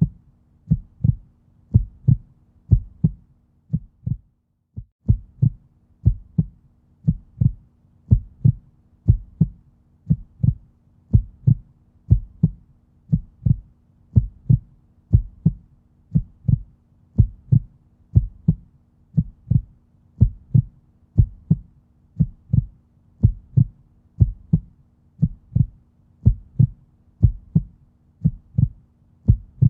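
Human heartbeat, a steady lub-dub of paired low thumps at about one beat a second, with a brief break about four seconds in.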